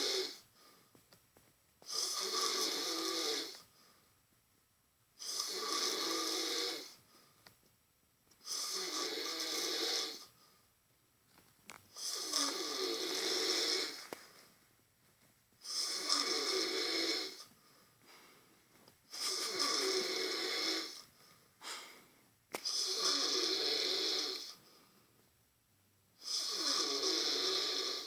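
A person passed out asleep, snoring hard: long snores about every three and a half seconds, eight in a row, with quiet gaps between.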